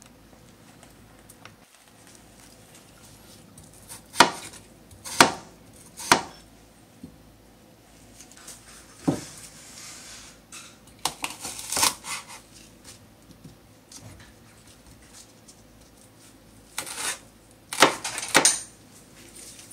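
A santoku knife cutting through a green onion and striking a wooden cutting board. The cuts come as single sharp knocks and short clusters with quiet gaps between them.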